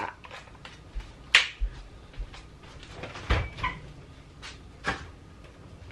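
Kitchen handling noises as a refrigerator door is opened: a few separate sharp knocks and clicks, the loudest about a second and a half in, with others around three and a half and five seconds.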